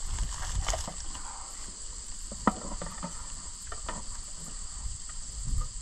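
Steady chorus of insects in the bush. Over it come a few light knocks and one sharp click about two and a half seconds in, as a snake hook works inside a plastic bucket.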